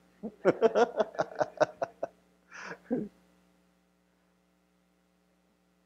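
A man laughing: a run of short chuckles for about two seconds, a breath, and one more short laugh about three seconds in.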